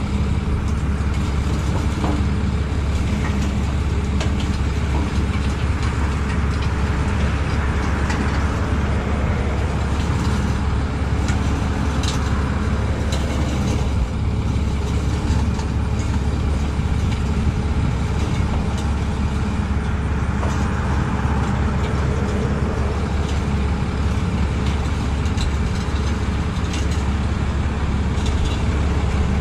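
Truck engine idling steadily, a constant low hum with a few faint ticks over it.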